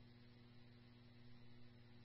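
Near silence on an idle scanner channel: a faint, steady electrical hum with light hiss.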